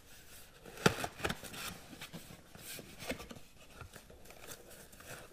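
Product packaging being handled and opened by hand: a sharp click a little under a second in, then scattered tearing, crinkling and scraping.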